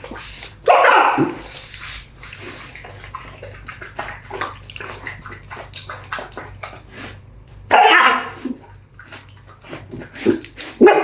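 Dog barking: two loud, harsh barks about seven seconds apart, with quieter short animal noises and scuffles between.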